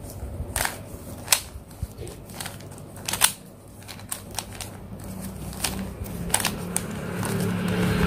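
Plastic Rubik's cube being twisted by hand to scramble it: irregular clicks and clacks as the layers snap round, at uneven intervals. A low steady hum grows louder near the end.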